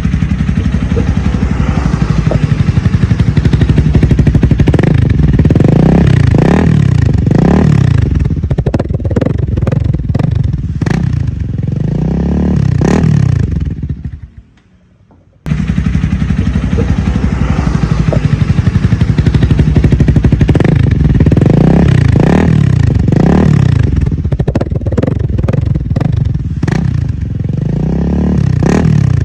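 Honda Rebel 300's single-cylinder engine running through an aftermarket SC Diablo exhaust with a deep, warm note, idling and being blipped up and down again and again. It cuts out a little before halfway, then the same run of idle and rev blips plays again.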